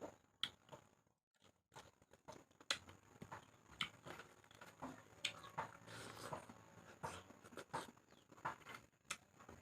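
A person chewing with the mouth open, making faint, irregular wet clicks and smacks, roughly one or two a second.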